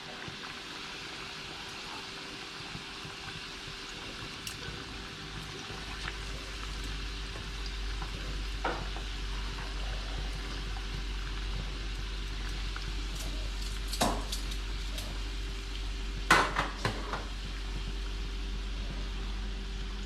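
Food sizzling as it fries in a pan, with a utensil stirring and knocking against the pan now and then; the sharpest clatters come near the middle and about three quarters of the way through. A low steady hum comes in about a quarter of the way in.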